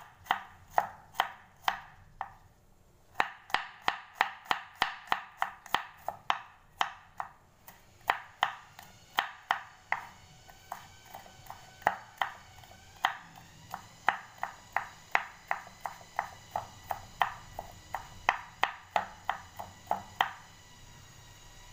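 Kitchen knife chopping garlic cloves on a wooden cutting board: a long run of quick, sharp knocks, about three a second, with a brief pause early on and stopping near the end.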